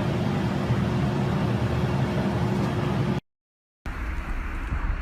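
Steady low rumbling noise that cuts off abruptly about three seconds in, then after half a second of dead silence comes back as a quieter rumble.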